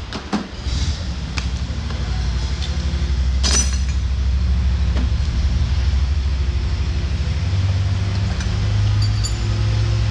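Scattered light metal clinks of hydraulic hard-line fittings and tools being handled, the sharpest about three and a half seconds in, over a steady low hum.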